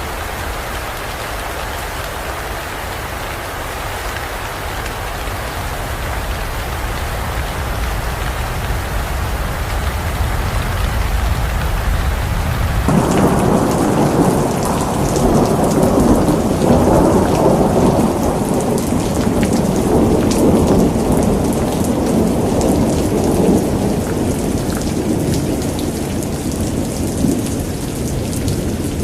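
Steady heavy rain; about thirteen seconds in the sound shifts abruptly to a deeper, louder rumble of thunder rolling on under the rain.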